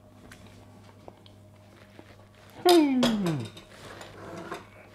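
A man's drawn-out appreciative "mmm" on tasting a spoonful of food, sliding down in pitch, about two and a half seconds in. A few faint small clicks come before it.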